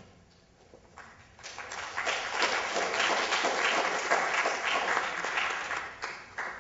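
Audience applauding in a large hall. The clapping starts about a second in, swells and dies away near the end.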